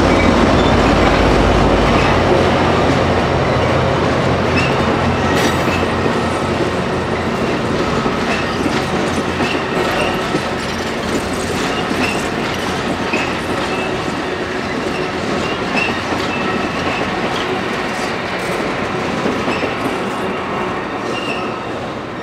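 Amtrak California bilevel passenger train passing at speed: steady rolling rumble with wheels clicking over the rails and faint, recurring high wheel squeals. The diesel locomotive's deep rumble fades in the first couple of seconds, and the train noise slowly dies away as the last cars go by.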